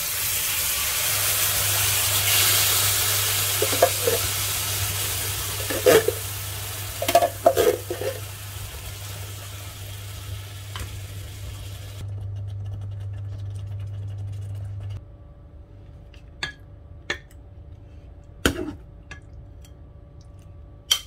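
Canned beef ravioli in tomato sauce sizzling as it is poured into a hot nonstick frying pan, the sizzle fading away over the next dozen seconds while a utensil stirs and knocks against the pan. A steady low hum runs under it and stops about three-quarters of the way through, and a few separate clicks follow near the end.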